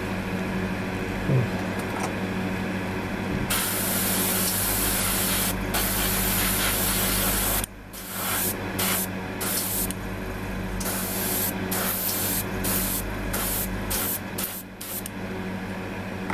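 Airbrush spraying paint. A steady hiss starts a few seconds in and lasts about four seconds, then comes a rapid string of short bursts as the trigger is worked on and off. A steady low hum runs underneath throughout.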